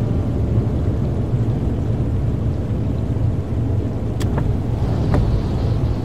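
Steady low rumble of a car driving: engine and road noise, with a few short clicks about four and five seconds in.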